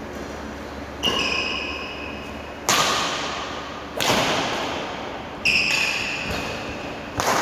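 Badminton rackets striking the shuttlecock in a rally, five sharp cracks spaced about one and a half seconds apart, echoing in a large hall. A short high ringing tone follows two of the hits.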